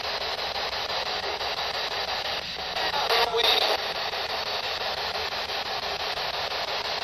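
P-SB11 spirit box sweeping through radio frequencies: a steady hiss of static, rapidly chopped by the scan, with a brief louder snatch of sound a little over three seconds in.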